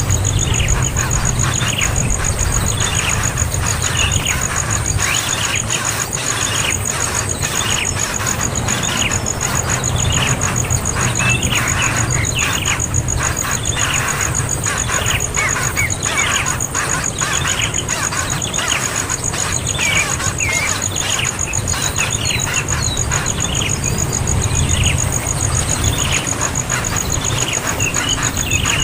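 Young bird calling over and over, short downward-sliding cries about once a second, with a steady high whine beneath.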